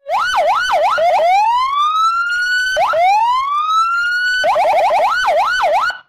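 Police car siren. It sweeps quickly up and down, then gives two long rising wails that drop back abruptly, then a rapid yelp about four and a half seconds in, returning to quicker up-and-down sweeps before cutting off suddenly.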